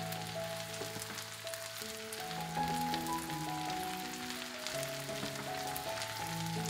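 Onion, potato and carrot pieces sizzling and crackling in hot oil in a frying pan as a silicone spatula stirs them. Soft background music of slow, held notes plays over the frying.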